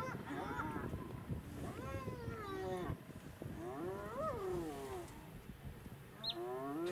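Repeated drawn-out animal calls, each rising and then falling in pitch, about every two seconds, four in all.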